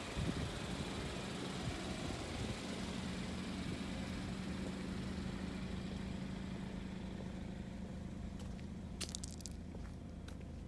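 Car running, a steady noise of road and engine with a low hum, easing off a little toward the end, with a few sharp clicks about nine seconds in.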